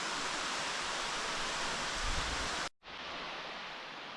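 Steady rushing hiss of falling water echoing in a cave pit. It cuts out abruptly for an instant about two-thirds of the way through and returns a little quieter.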